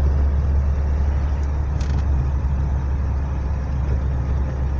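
Car heard from inside the cabin while driving in the rain: a steady low drone of engine and tyres on the wet road, with the windscreen wipers sweeping and a brief higher sound about two seconds in.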